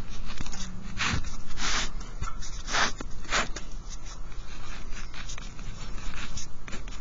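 Ballpoint pen scratching across lined paper: four longer strokes in the first few seconds as the sides of a box are drawn, then shorter, fainter scratches of handwriting, over a steady low hum.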